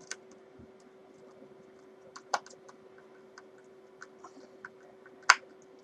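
Small scattered clicks and taps of pickguard screws and a screwdriver as the screws are started in their holes and left loose, with a sharper click about two seconds in and the loudest one near the end. A faint steady hum runs underneath.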